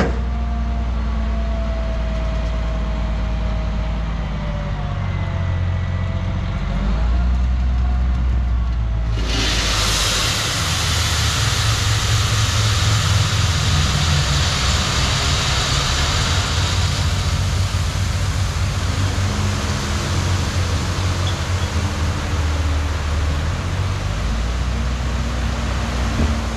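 Dump truck's diesel engine running with a wavering whine. About nine seconds in, a load of 3/4 inch gravel starts pouring out of the raised box with a loud, steady rushing hiss of sliding stone over the engine.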